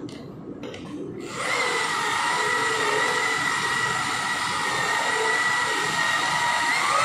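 Electric car polisher with a wool pad running on painted bodywork, a steady motor whine that comes in loudly about a second and a half in and rises slightly in pitch near the end. The wool pad is cutting with Menzerna 400 compound to take out light scratches: the compounding stage of paint correction.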